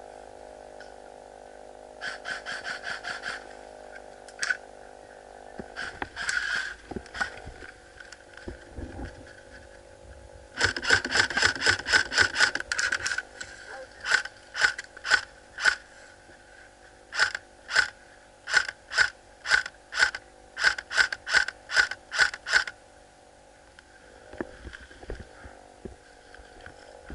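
Airsoft rifle firing: a short full-auto burst about two seconds in, a longer rapid burst of about two and a half seconds near the middle, then a run of about eighteen single shots at two to three a second.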